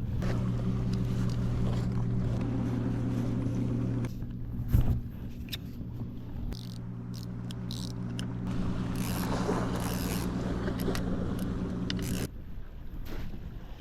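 An engine running steadily at an even pitch, with a single loud knock about five seconds in. The engine sound stops about twelve seconds in.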